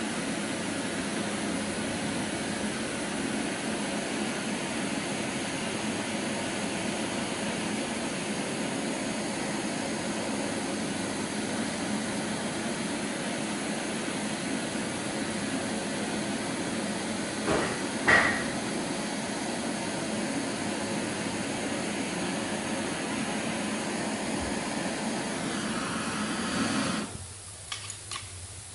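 Handheld canister gas torch burning with a steady hiss as its flame heats a coated motorcycle exhaust pipe. Two sharp knocks come a little past the middle. The torch shuts off shortly before the end, followed by a few light clicks.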